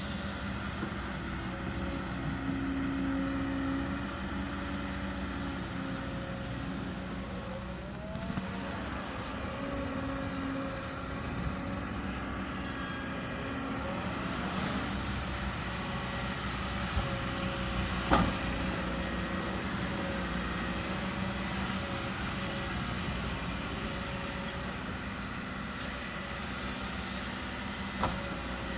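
Kobelco hydraulic excavator's diesel engine running steadily under working load, swelling at times, with short rising and falling whines from the hydraulics as it digs. A sharp knock about eighteen seconds in, and another near the end.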